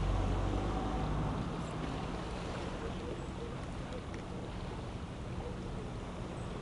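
Boat motor running steadily: a low hum under a constant wash of wind and water noise.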